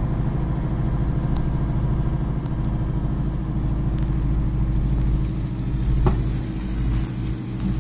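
An engine running steadily while water rushes from a hose into a plastic sprayer tank as it fills.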